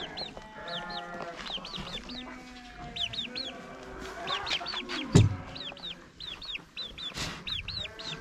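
Chickens calling: many quick high peeping chirps of chicks alongside lower clucking, with a loud thump about five seconds in.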